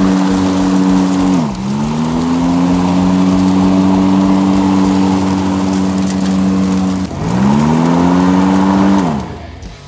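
Battery-powered DC electric motor on a converted Craftsman mower deck, spinning the blade with a steady hum. Its pitch sags and comes back up twice, then it spins down and stops really fast near the end.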